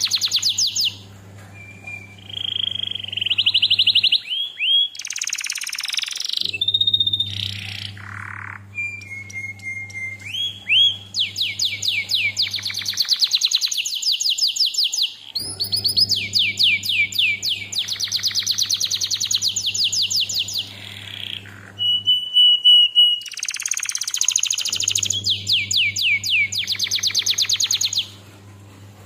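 Domestic canary singing: long fast trills of rapid repeated notes in phrases several seconds long, broken by short whistled notes and brief pauses. A steady low hum runs under the longer trills, and the song drops away near the end.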